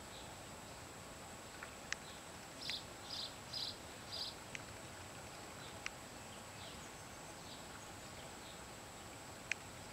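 Faint outdoor ambience with birds calling: a run of four short chirps about three seconds in, and scattered sharp ticks over a steady hiss.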